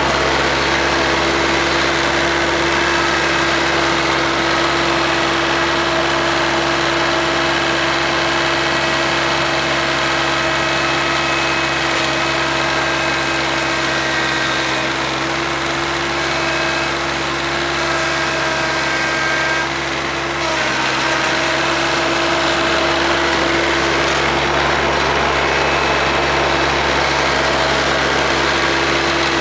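Kioti CS2210 compact tractor's 22 hp three-cylinder diesel running steadily while it drives a 48-inch rear snowblower through snow. The sound dips briefly about twenty seconds in.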